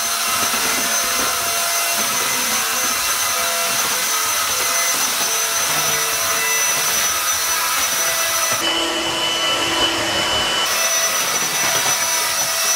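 Upright floor vacuum running steadily over a tile floor, a constant motor hiss with a high whine. Its tone shifts for about two seconds near the middle.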